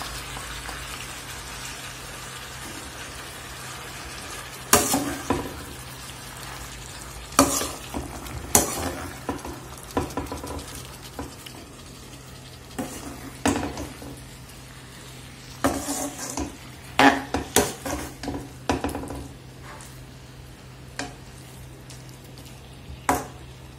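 Vegetables and ground coconut paste sizzle gently in a kadai as they are sautéed to cook off the raw coconut taste. A slotted metal spatula stirs them, scraping and clinking against the pan every few seconds, in quick runs near the middle.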